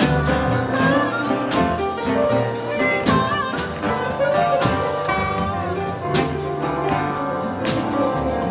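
Live blues band playing an instrumental break with guitars, congas, drum kit and piano, over regular drum strikes. A lead line bends and slides in pitch above the band.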